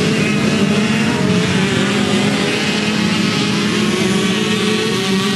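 Several 85cc two-stroke motorcycle engines racing, their pitch wavering up and down as the riders rev through the turns.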